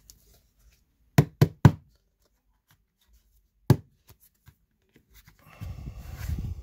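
Knocks on a tabletop while trading cards are handled: three quick knocks about a second in, a single knock a little later, then a rustling, shuffling noise of cards being handled near the end.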